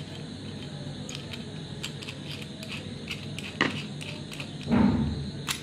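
Taparia multipurpose screwdriver's metal extension shaft being unscrewed by hand from the plastic handle: faint ticks and rubbing of the threads, with a sharper click about three and a half seconds in. A louder dull handling thump comes near the end.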